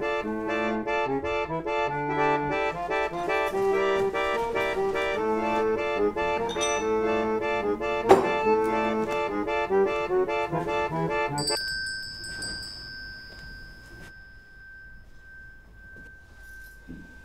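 Accordion music with a bouncing, alternating bass line that stops abruptly about eleven seconds in, leaving a thin high ringing tone that fades out. A single sharp click sounds about eight seconds in.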